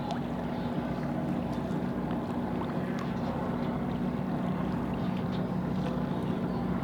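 Motor of the charter boat running with a steady drone, heard from on board.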